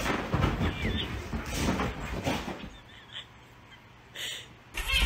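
A dog scuffling and tussling with a person on a fabric couch: irregular rustling and soft thuds for about the first three seconds, then it goes quiet. A loud thud comes right at the end.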